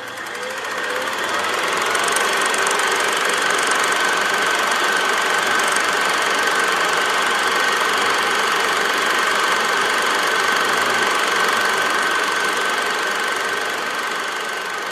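Film projector running: a steady mechanical sound with a high, steady whine, fading in over the first two seconds and fading out near the end.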